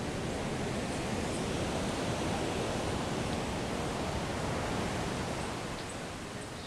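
Ocean surf washing on the beach, a steady rushing hiss that eases a little near the end.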